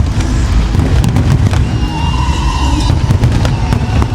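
Aerial fireworks display: a continuous low rumble of shell bursts with rapid crackling pops throughout. A steady high tone joins about halfway through.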